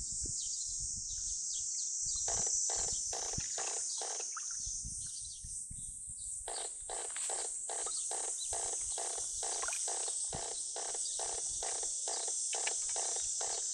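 Steady high insect chorus with an animal calling in runs of short, evenly repeated pulses, about three a second, pausing for about two seconds in the middle.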